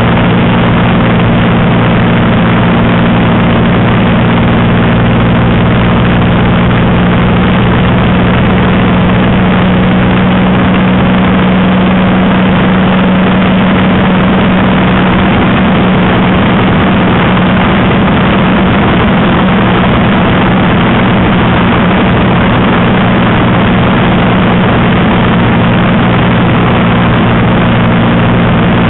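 Spitfire's V12 piston engine running steadily in flight, heard from inside the cockpit as a loud, unbroken drone.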